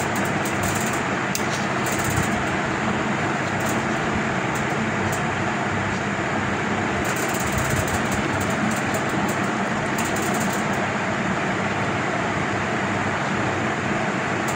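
Steady machine-like hum with an even rushing noise over it, unchanging and with no distinct clicks or knocks.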